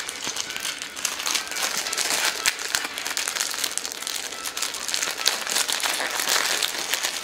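Plastic shrink wrap on a boxed Blu-ray set crinkling and crackling as it is handled, a steady run of small crackles.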